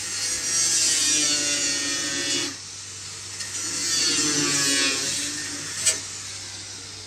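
Angle grinder with a cut-off wheel slicing through the sheet-steel inner wheel tub, in two cuts with a short break about two and a half seconds in. A sharp click comes near the end of the second cut, and the grinding then dies away.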